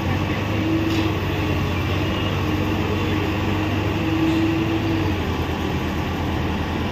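Komatsu PC85 excavator's diesel engine running steadily close by, with a higher whine coming and going a few times as the arm and grab attachment move.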